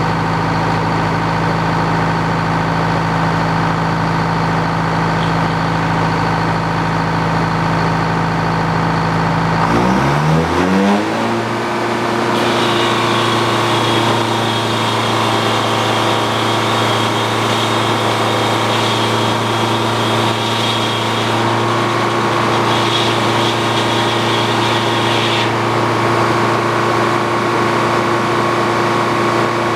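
Engine powering an old Frick sawmill running steadily, then revving up about ten seconds in and holding a higher speed. A high steady whine joins soon after and drops out near the end.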